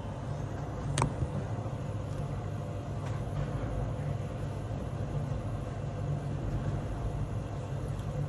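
Steady low hum of kitchen machinery, with one sharp click about a second in.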